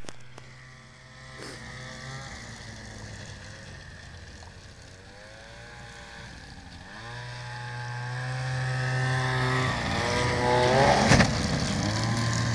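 Snowmobile engine revving up and down, its pitch rising and falling and growing louder from about seven seconds in, with a sharp knock near the end.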